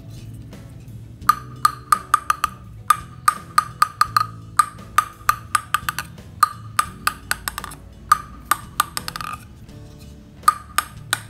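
A table tennis ball bounced repeatedly on the bare wooden face of a Victas Dyna Seven seven-ply offensive blade, each bounce a sharp, ringing click. The bounces come in runs of about three a second, with pauses about a second in and again about nine seconds in.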